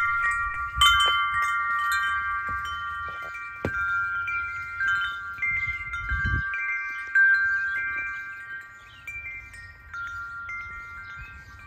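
Woodstock wind chime's hanging metal tubes ringing in the wind, several pitches struck at irregular moments and overlapping as they sustain. The ringing grows quieter in the last few seconds.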